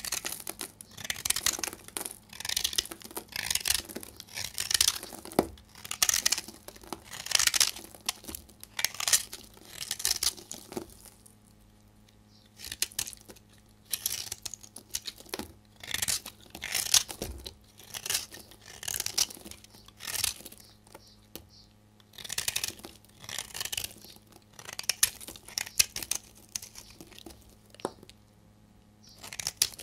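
A knife blade shaving and cutting a bar of dry soap: a scrape with each stroke as the soap crumbles into flakes. The strokes repeat about once a second, with a few short pauses.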